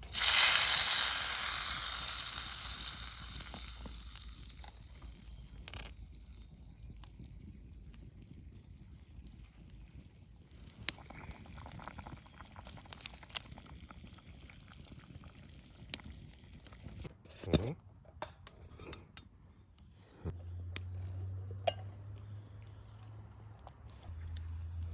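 A hot pan sizzles loudly as food or liquid hits it, the sizzle fading over about four seconds. Scattered clicks and knocks of cooking utensils follow.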